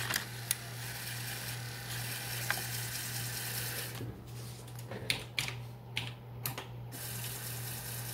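Open 5.25-inch floppy drive running with a bare floppy disk spinning outside its jacket: a steady hum and hiss. From about four to seven seconds in, the hiss drops away and the head mechanism clicks several times as the drive tries to read a side that is not formatted.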